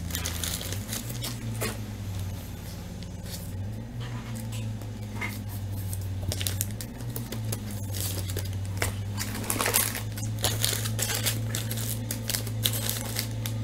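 Clear plastic card bags and sleeves crinkling and rustling in short, irregular bursts as trading cards are handled, busier in the second half, over a steady low hum.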